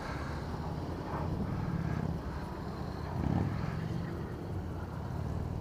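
Motorcycle engine running steadily at low revs, with a short rev about three seconds in.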